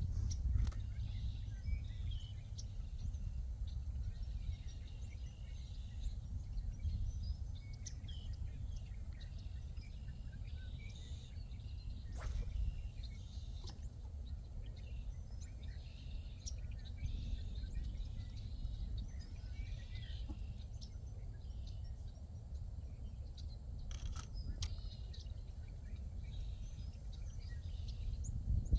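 Outdoor ambience: scattered bird chirps over a steady low rumble, with a few sharp clicks, one near the start, one about halfway and two close together later on.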